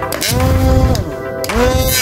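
Small brushed DC hobby motor driving a two-blade plastic propeller: it spins up with a rising whine, winds down about a second in, then spins up again near the end, over a low rumble of air from the propeller.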